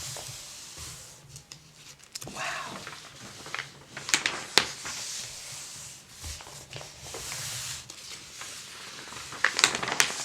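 Paper pages of an old mail-order catalog being handled and turned, with rubbing and crinkling of the paper and a few sharp, crisp snaps.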